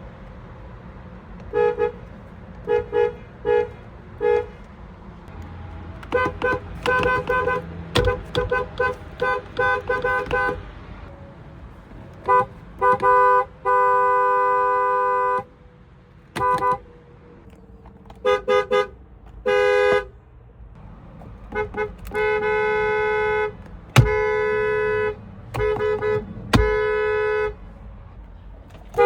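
Car horn honked over and over, sounding two notes at once: bursts of short quick toots alternating with several long blasts held for a second or two.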